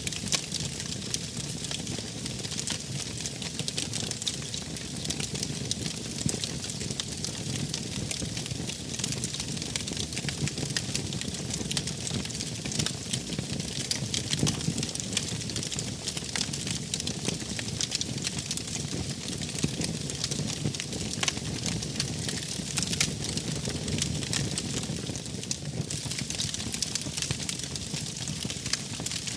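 Wood fire crackling, with many small sharp pops scattered over a steady low rustle of burning.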